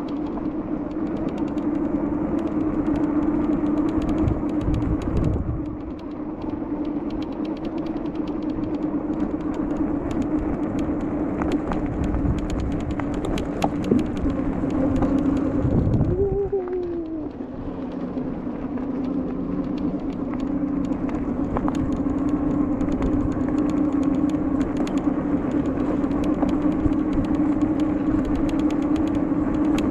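Steady drone of passing road traffic, with a constant low hum and rumble and wind buffeting the microphone. A short wavering tone sounds about halfway through.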